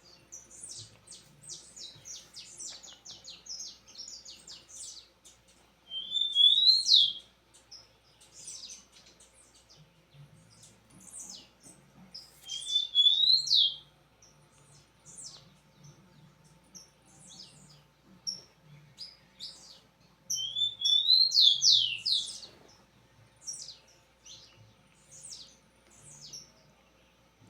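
A songbird singing a loud phrase several times: a rising trill that ends in a sharp upward sweep. Short, high chirps come between the phrases.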